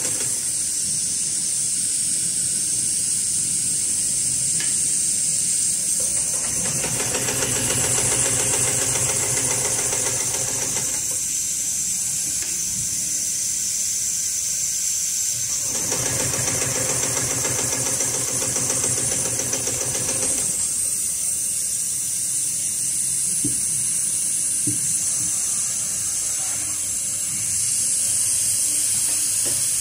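HighTex 733CS extra-heavy-duty walking-foot industrial sewing machine stitching through a thick multi-ply polyester lifting sling. It runs in three stretches of about five seconds, with pauses between, over a steady high hiss.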